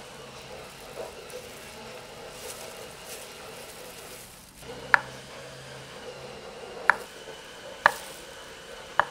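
Cleaver blade slicing through a peeled banana and knocking on a wooden cutting board: four sharp knocks in the second half, one to two seconds apart.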